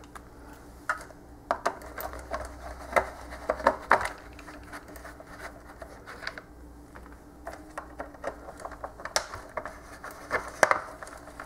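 Phillips screwdriver backing screws out of a plastic dehydrator housing: irregular clicks and scrapes of the bit in the screw heads and light taps on the plastic, in two bursts, over a faint steady hum.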